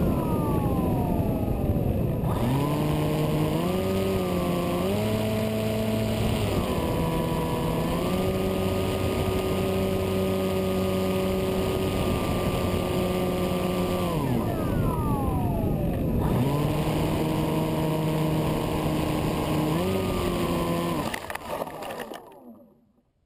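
Electric motor and propeller of a Skywalker RC plane running over a steady rush of air, its pitch falling and rising with the throttle and dipping low twice. Near the end the motor stops and the sound falls away to near silence as the plane comes down in the grass.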